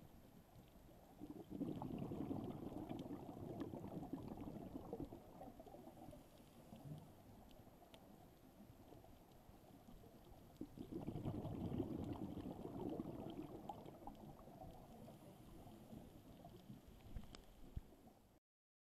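Scuba diver's exhaled bubbles from the regulator, heard underwater: two long bouts of low bubbling, about a second in and again about eleven seconds in, with faint crackling and clicks between. The sound cuts off just before the end.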